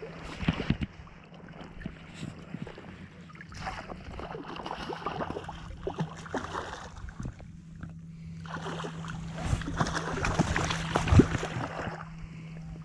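Water splashing and sloshing in irregular bursts as a hooked fish thrashes at the surface and is drawn to a landing net, with a couple of sharp knocks, one near the start and a louder one near the end.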